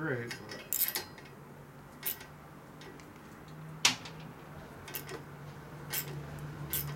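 Scattered sharp metal clinks and taps of a socket on a long extension working an exhaust header flange nut on a Harley-Davidson Evo Sportster, with a low steady hum underneath.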